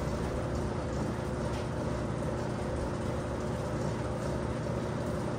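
A steady low mechanical hum with a few faint clicks.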